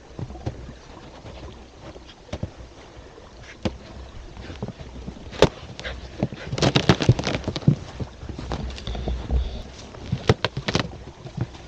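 Footsteps crunching in snow, an irregular run of crunches that comes thickest a little past halfway and again near the end, over light wind rumble on the microphone.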